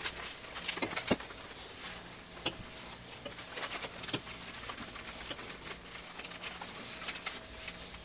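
Paper towel held in metal tongs rubbed over a ceramic-coated griddle surface: soft wiping with scattered light clicks and taps.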